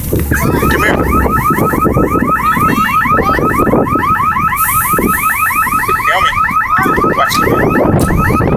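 A rapid, evenly repeated electronic chirping, like an alarm, about seven short rising-and-falling chirps a second, over a low rumble of engine and wind.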